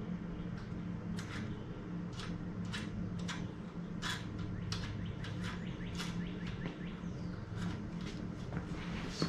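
Small birds chirping, short sharp calls about once or twice a second, over a steady low hum.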